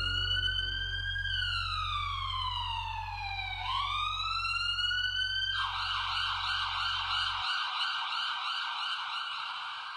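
Police-style siren wailing, its pitch rising and falling slowly, then switching about five and a half seconds in to a fast warbling yelp. A low steady drone sits under it and stops partway through, and the siren fades near the end.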